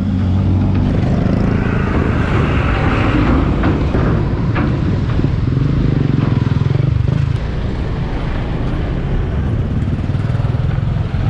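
Road traffic passing close: cars and small motorcycles going by with a steady, loud rumble of engines and tyres, one vehicle swelling louder about two seconds in.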